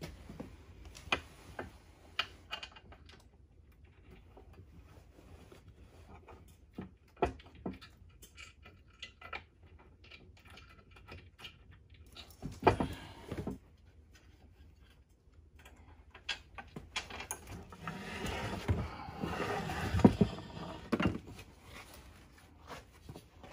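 Scattered knocks and clunks of a heavy electric winch being handled and set onto its steel mounting plate, with a longer, denser stretch of handling noise and knocks near the end.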